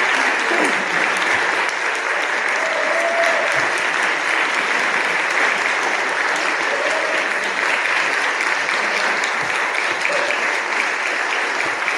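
Audience applauding: dense, steady clapping that keeps up throughout.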